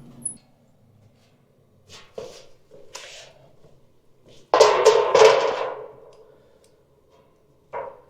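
A few scattered knocks, then a louder clattering bang about halfway through that lasts about a second, and two short knocks near the end.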